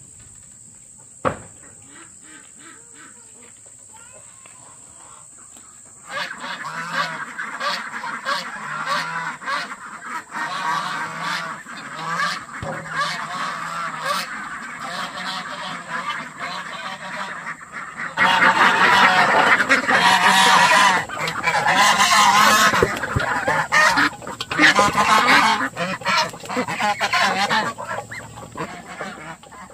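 A flock of domestic fowl calling together: many overlapping honking calls start about six seconds in and grow much louder from about eighteen seconds in. A single sharp knock comes about a second in.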